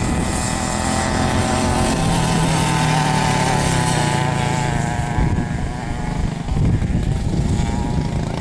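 Briggs & Stratton Animal single-cylinder four-stroke go-kart engine running hard, holding a steady high note, then easing off about halfway through and turning rougher and lower.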